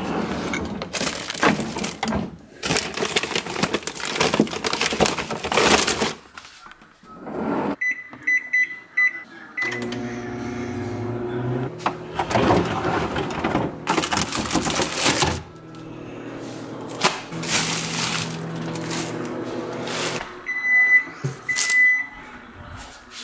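A microwave oven's keypad beeps quickly several times, then the oven runs with a steady hum, and two longer beeps sound near the end. Loud rustling and handling noise comes at the start and again in the middle.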